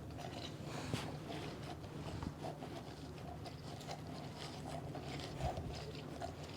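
Faint squeezing and handling sounds from an old hand squeezer pressing juice out of chopped ingredients: soft scattered ticks and rustles, with a light click about a second in.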